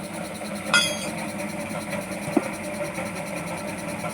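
Metal tools clinking during a motorcycle tyre change: one sharp, ringing clink about a second in and a duller knock a little later, over a steady low hum.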